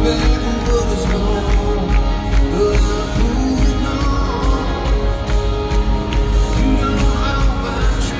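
A country band playing live in an arena: drums and bass keep a steady beat under guitars, with a lead singer's voice over them.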